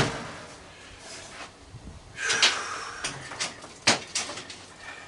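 Metal parts of an old microwave being handled as it is taken apart: a knock at the start, a scrape and rattle about two seconds in, then a sharp metal knock near four seconds with a few lighter clicks.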